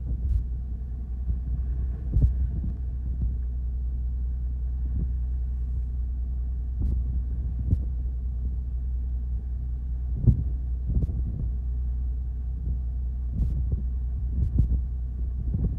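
A small fishing boat's engine running with a steady low drone, along with wind and sea noise and a few short thumps, the loudest about ten seconds in.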